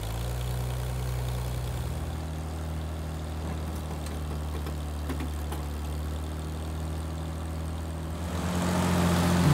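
International 606 tractor engine idling steadily, freshly started.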